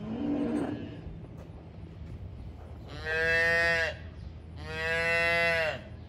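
Young dairy calf mooing twice, each call about a second long, the second starting just after the first ends.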